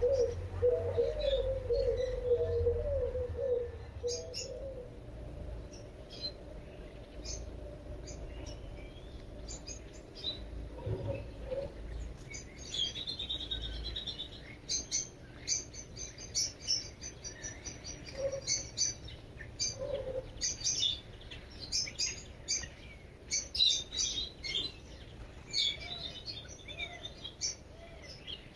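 Birds calling: a pigeon cooing in a low, repeated phrase for the first few seconds, then small birds chirping in quick, short, high notes that come thick and fast through the second half.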